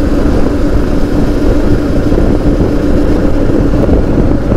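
Moto Morini X-Cape 650's parallel-twin engine running at a steady speed while riding, holding an even pitch.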